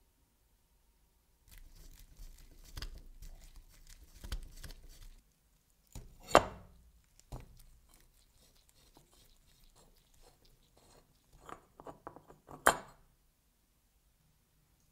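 A rusty, oil-soaked screw being turned by hand out of an antique tap wrench, its threads grinding and crunching for a few seconds. Then sharp metal clicks and knocks as the small parts are handled, with a loud one about six seconds in and a quick run of clicks ending in another loud one near the end.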